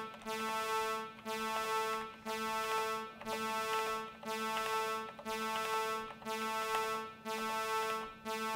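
Live-coded software synthesizer playing the same pitched note over and over, about once a second. Each note is held nearly a second with a short gap before the next. The voice is two sine oscillators tuned to 220 and 221 Hz, slightly detuned.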